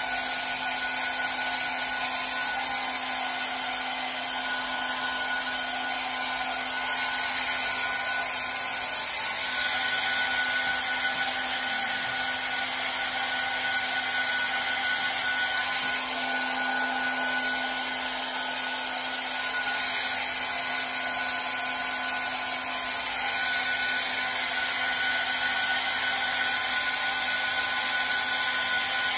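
Handheld hair dryer running continuously, a steady rush of blown air with a constant motor hum, getting slightly louder about ten seconds in and again near the end.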